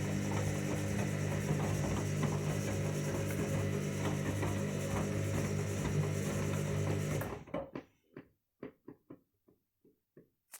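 Washing machine drum turning on a cottons 60° main wash: steady motor hum with the wet load sloshing. About seven seconds in the motor cuts out and the drum coasts down, the load tumbling in a run of fading, slowing thuds, the pause between tumble strokes.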